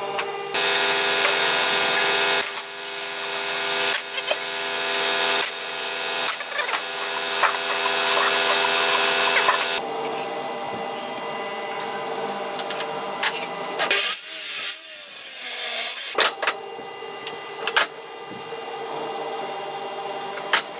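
Electric band saw running and cutting through wood for about the first ten seconds, the cut briefly easing a few times. It then runs on without load, with a few sharp knocks near the end.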